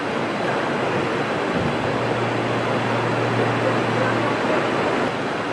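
Steady street traffic noise, with a low steady hum for a few seconds in the middle.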